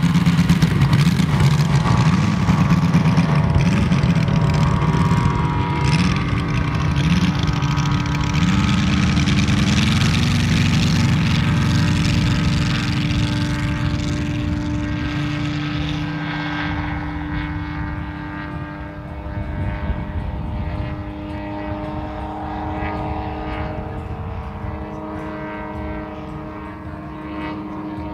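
Engine of a large-scale model Robin towplane running at full power on an aerotow, loud at first and fading steadily as it climbs away with a glider in tow.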